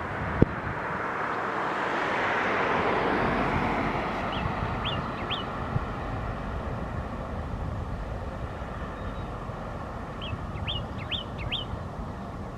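A vehicle passing, its noise swelling and fading over the first few seconds, then a small songbird giving two short runs of rising chirps, three notes and then about four.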